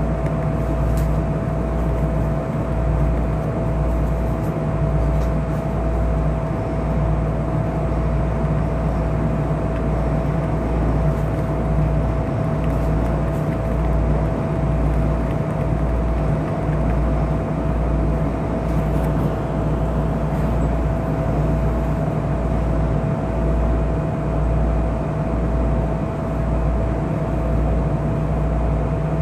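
Keisei 3500 series electric commuter train heard from inside the car: a steady hum with a constant whine over a low, pulsing rumble. The pitch does not change.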